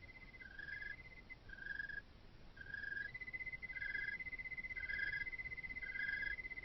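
Night insects calling. One gives a fast, steady trill that drops out briefly and resumes about halfway through; another gives a short chirp about once a second.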